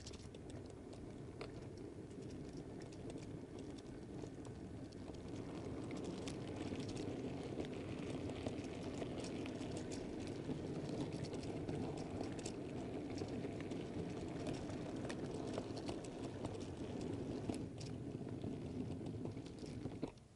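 Model railway goods train running along the track, heard from a wagon on the train: a steady rumble of wheels and motor with quick irregular clicks over the rail joints. It gets a little louder over the first few seconds and stops abruptly as the train halts.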